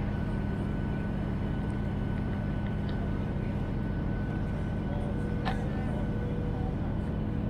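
Cabin noise inside a Boeing 737 airliner on approach: a steady drone of engines and airflow with a few constant hums, and one short sharp click about five and a half seconds in.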